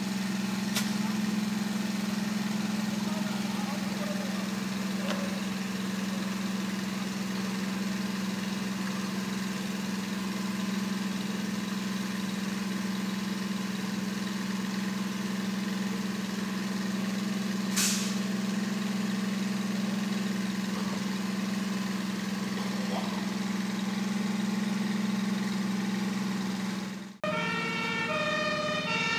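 A fire engine's engine running with a steady, even drone, with two brief clicks. Near the end, after a sudden break, a fire engine's two-tone siren starts, alternating between two pitches.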